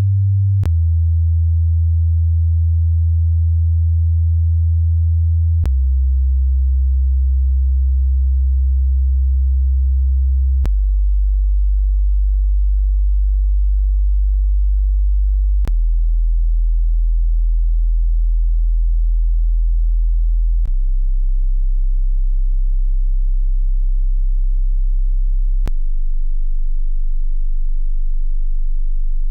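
A pure sine test tone descending through the bass in steps, each held about five seconds. It falls from around 100 Hz to below 40 Hz, toward the lower limit of human hearing, with a faint click at each change of pitch.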